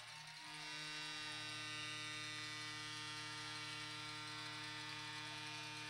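Steady electrical mains hum in the audio feed, several fixed low tones held without change, with a faint hiss above it.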